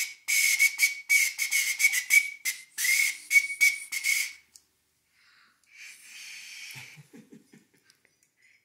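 Tiny plastic recorder blown in a quick run of short, shrill toots on one high, breathy note for about four seconds, then a fainter airy blow about six seconds in.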